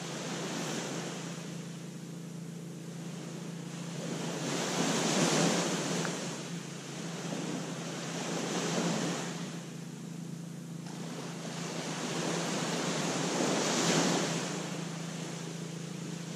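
Small waves breaking and washing up on a sandy beach, swelling loud four times, a few seconds apart.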